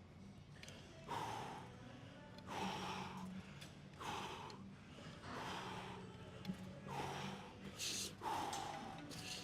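A man breathing hard in recovery after a heavy weight-training set: a loud, noisy exhale or gasp about every second and a half, with faint background music underneath.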